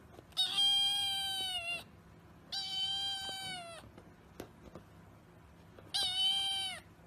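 A kitten meowing three times. Each meow is long and high, lasting around a second or more, and drops in pitch at its end.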